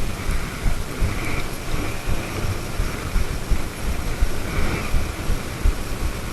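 Wind buffeting the microphone: an irregular low rumble of gusts over a steady rush of air.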